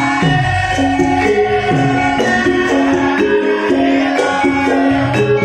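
Live Javanese gamelan music: a melody of struck metal keys stepping from note to note, with steady percussion strokes underneath.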